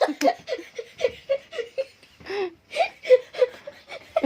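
Children laughing and giggling in quick, repeated bursts.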